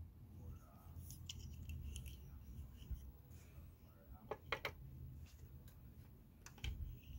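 Faint clicks and taps of the detachable cutting lever being fitted onto the front of an Oster electric can opener: a few scattered clicks, then a quick cluster of sharp clicks about four and a half seconds in and two more near the end.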